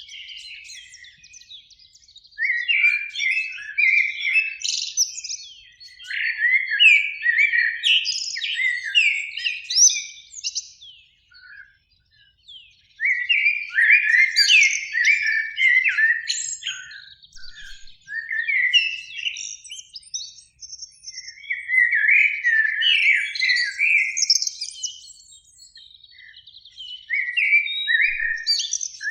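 Common blackbird song: rapid, varied whistled phrases lasting a few seconds each, separated by short pauses.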